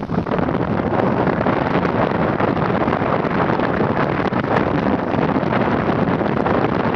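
Steady, loud rush of wind over the microphone from riding a bicycle downhill at about 42 km/h.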